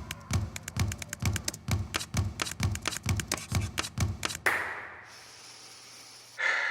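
Rapid sharp tapping over a steady low thump about twice a second. It cuts off suddenly about four and a half seconds in, leaving a faint hiss, and a short louder burst comes near the end.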